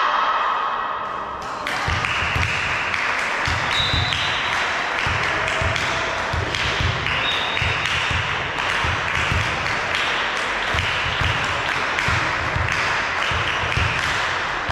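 Sports-hall crowd din, a steady wash of noise that starts about two seconds in, broken by repeated thumps about twice a second and sharp knocks.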